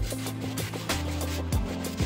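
Background music with a steady beat: deep kick drums that drop in pitch, quick hi-hat ticks and held bass notes.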